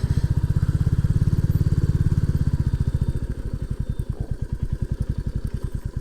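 Royal Enfield Classic 350's single-cylinder engine running with an even, pulsing beat. About three seconds in it drops to a quieter, steady beat.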